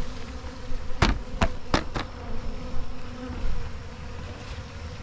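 Honeybees buzzing steadily around the hive, with four sharp knocks in quick succession about a second in.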